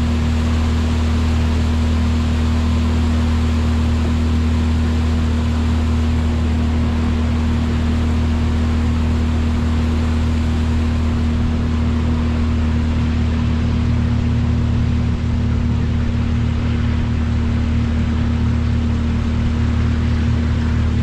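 Honda 30 hp outboard motor running at a steady speed, driving a motorboat along: a constant low drone over a broad rushing noise of water and air.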